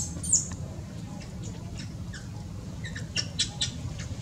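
Infant macaque giving short, high-pitched squeaks: one loud squeak just after the start, then a quick run of four or five about three seconds in.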